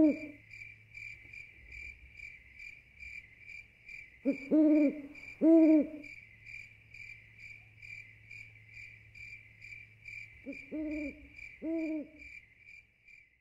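Owl hooting in two groups of three rise-and-fall hoots, about six seconds apart, over a steady, rapid pulsing chirp of crickets.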